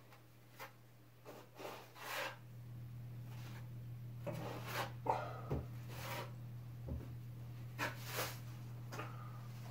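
Drywall knife spreading and scraping joint compound into the gaps of a ceiling seam: a series of short, irregular scraping strokes and light clicks. A steady low hum comes in about two seconds in.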